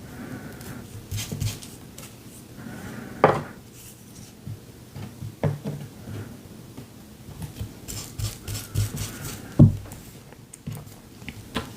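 Hands working with paper and small tools on a work table: scattered light taps and clicks with soft paper rustling, and a couple of sharper knocks about three seconds in and near the end.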